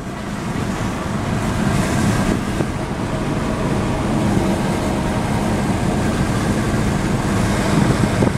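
Engine and road noise of an old manual-transmission truck heard from inside the cab while it drives along at a steady pace.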